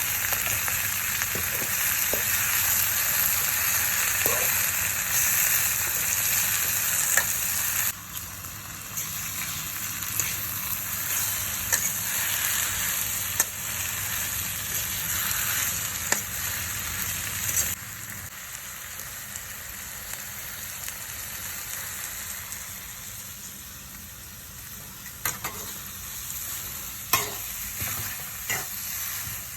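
Food sizzling as it fries, with scattered clicks of a utensil stirring it. The sizzle drops abruptly about a quarter of the way in and again a little past halfway.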